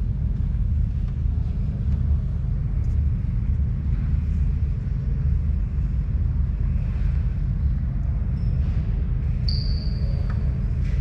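Steady low rumble throughout, with a brief high squeak about nine and a half seconds in.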